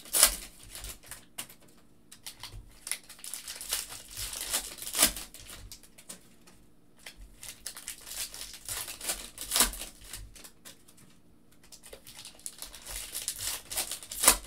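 Foil wrappers of Panini Prism basketball hobby packs crinkling and being torn open by hand, one pack after another, with four louder rips about every four to five seconds.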